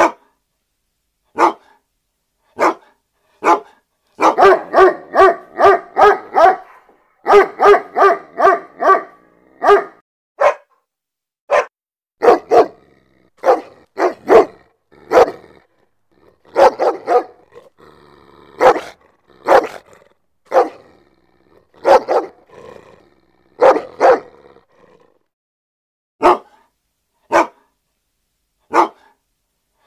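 Angry dog barking: single sharp barks about a second apart, broken a few seconds in by two runs of rapid barking, then more barks singly and in short clusters.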